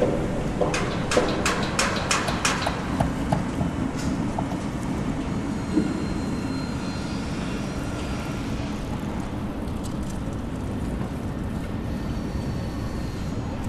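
Steady low rumble of a car driving slowly, heard from inside, with a run of sharp clicks in the first few seconds.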